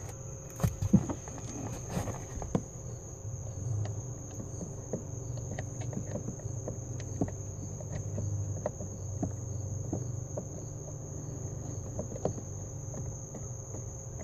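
Irregular light clicks and taps of a small screw being started by hand into the plastic housing of a heater door actuator, over a steady high-pitched whine and a low hum.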